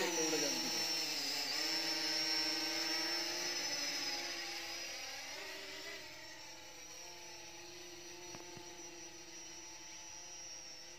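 Small quadcopter drone's propellers whining as it flies away and climbs, fading steadily as it gets farther off. The pitch dips briefly about a second and a half in.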